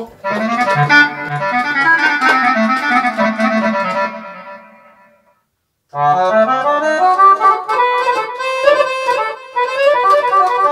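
Roland FR-3X digital accordion playing a melody with accompaniment in a reedy accordion register, a voice taken from the arranger keyboard's sounds rather than an add-on sound module. The playing breaks off about five seconds in and starts again a second later.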